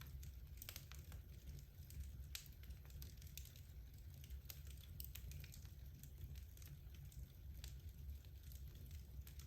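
Logs burning in a fireplace, crackling quietly with sparse, irregular small pops over a low steady rumble.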